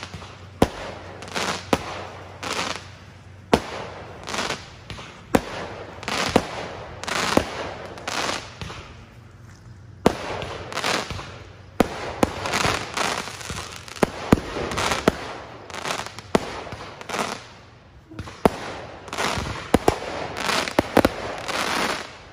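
Aerial fireworks going off in quick succession: sharp bangs, each followed by a short spell of crackling, with a brief lull about ten seconds in.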